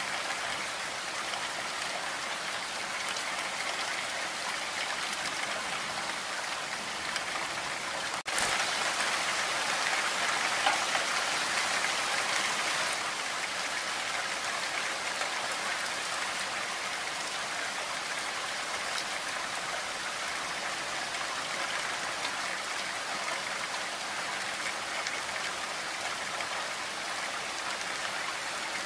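Steady rainfall, an even hiss of many drops. It breaks off for an instant about eight seconds in and comes back a little louder for a few seconds.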